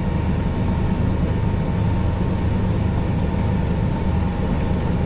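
Fendt tractor engine running steadily under load while pulling a Kverneland round baler that is baling grass: an even low drone with a faint steady higher hum over it.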